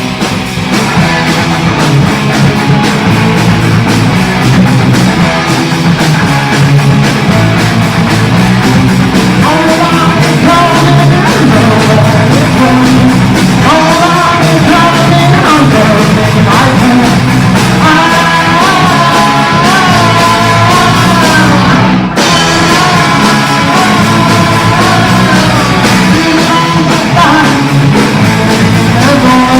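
Punk rock band demo recording: a full rock band playing with singing, with a momentary drop-out about 22 seconds in.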